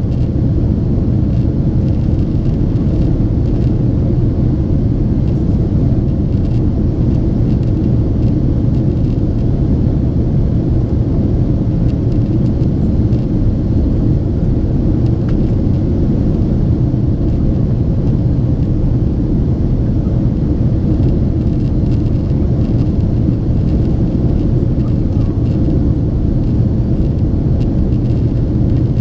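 Boeing 767-400ER cabin noise heard from a window seat: a steady, loud low rumble of the jet engines and airflow, unchanging throughout.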